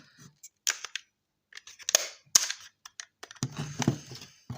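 Plastic case of a smart meter display unit being pried apart by hand: a series of sharp cracks and snaps as the plastic clips give, with handling rattles between them.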